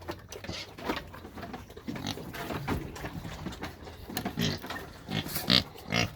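Pigs grunting and squealing while they eat from a trough, with irregular snuffling and chomping.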